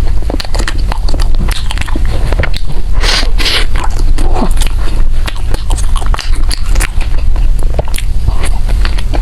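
A person biting and chewing food close to the microphone: a run of short crunchy clicks and wet mouth noises, over a steady low hum.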